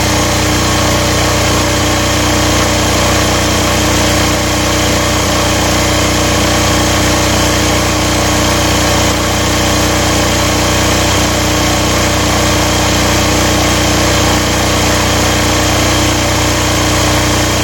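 Aurora AGI6500DE diesel generator's single-cylinder air-cooled engine running steadily, still warming up after a cold start at about 30°F.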